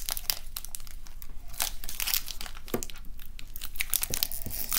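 Foil wrapper of a Pokémon card booster pack crinkling and tearing as it is worked open by hand, in quick irregular crackles.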